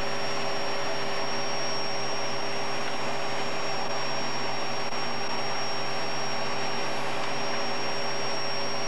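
Steady roar of jet engines and rushing air on a KC-135Q tanker's flight deck in flight, with a thin high whine held throughout.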